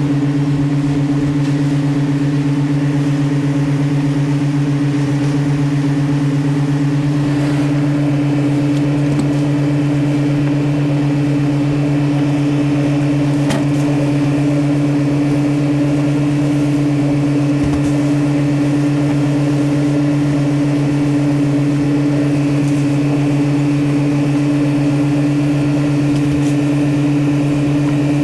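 Fishing boat's engine running steadily under way: a loud, even, low hum that holds one pitch throughout, with a faint click about halfway through.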